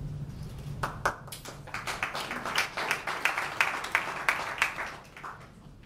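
Audience applauding: a run of many quick hand claps that starts about a second in and dies away about a second before the end.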